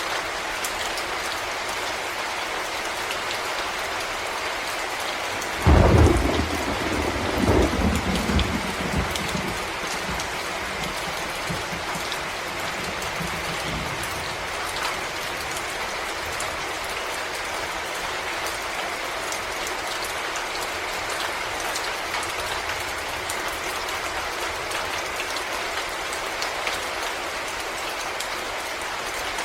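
Steady rain falling in a forest, an even hiss throughout. About six seconds in a sudden loud clap of thunder breaks in and rolls off in low rumbles over the next several seconds.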